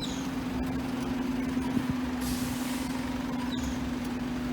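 A vehicle engine running steadily with a low, even hum, and a short burst of hiss a little over two seconds in.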